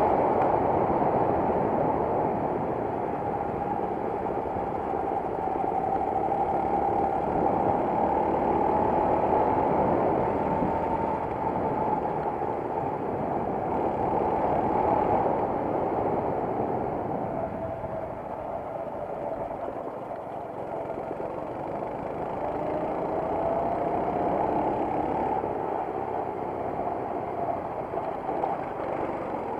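Racing kart engine heard on board, its pitch rising and falling several times as the kart speeds up and slows down around the track.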